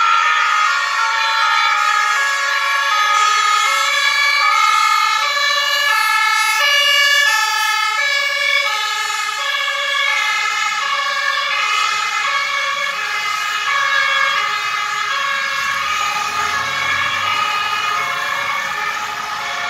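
Several German two-tone emergency sirens (Martinshorn) on fire engines and an ambulance sounding at once, each stepping back and forth between two pitches and out of step with one another. A low vehicle rumble joins near the end.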